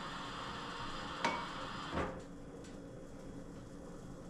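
A utensil knocking lightly on cookware twice, about a second in and again about two seconds in, over a faint steady hiss.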